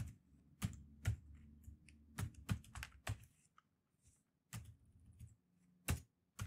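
Typing on a computer keyboard: irregular keystroke clicks, singly and in short runs, with a pause of about a second near the middle.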